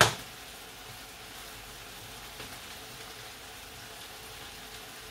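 Food frying in a pan: a steady, even sizzle. A single sharp click right at the start.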